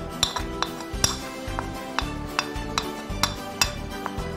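Metal spoon tapping and scraping against a small ceramic bowl as cornflour is knocked out of it: a run of sharp, irregular clinks, about two or three a second.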